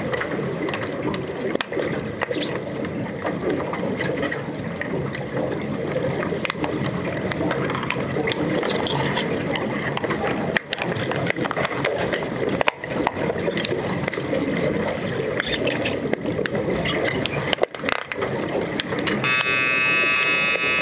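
Muffled underwater din of a swimming pool during an underwater hockey game: bubbles and splashing from the players, with a few sharp clicks of sticks and puck against the pool floor. Near the end a loud steady underwater buzzer sounds, the referee's signal that stops play.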